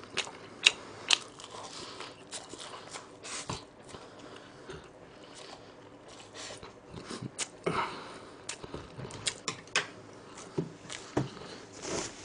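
Close-miked chewing and slurping of cold spicy mixed noodles wrapped in laver, with many short, sharp wet mouth clicks scattered throughout.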